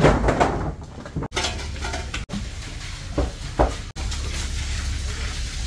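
Clattering and a couple of sharp knocks over a steady low hum, the sound breaking off abruptly several times.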